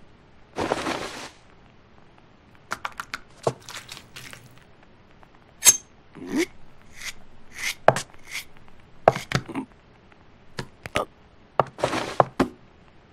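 Sparse small clicks, taps and short scrapes, with a brief hiss about a second in and a quick run of sharp clicks near the end.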